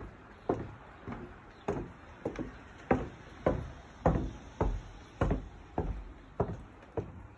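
Footsteps on wooden decking boards, an even walking pace of a little under two steps a second, each step a sharp knock.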